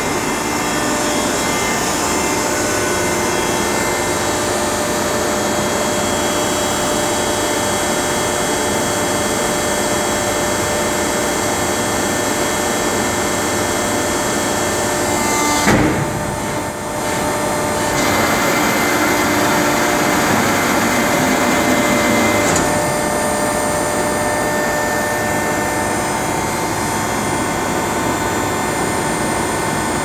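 American W409 two-ram baler running as it compresses old corrugated cardboard into a bale: a loud, steady mechanical drone with several steady tones from its hydraulic power unit. About sixteen seconds in there is a sharp knock and the sound dips briefly, then it runs louder for about four seconds before settling back to the steady drone.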